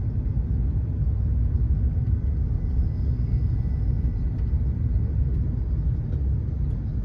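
Steady low rumble of an SBB ETR610 electric tilting train running at speed, heard from inside the passenger cabin.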